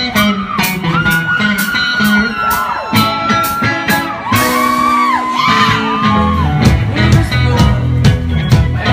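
Indie rock band playing live: a singing voice over electric guitar, bass and drums. The bass and drums get heavier about six seconds in.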